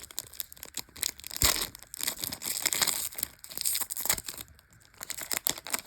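A foil trading-card booster pack being torn open and crinkled by hand: a run of crackling rustles with one sharp, loud tear about a second and a half in, tapering off near the end.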